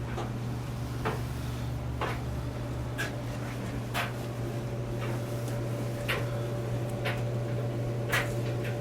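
Steady low hum of running heating equipment, with a sharp tick about once a second.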